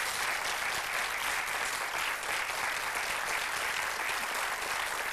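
Steady applause from a studio audience and the contestants, greeting the winner of the quiz.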